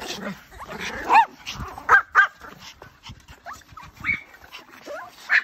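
A group of Pomeranians yipping and whining in short, high-pitched calls, with several sharp yaps about one and two seconds in and another near the end.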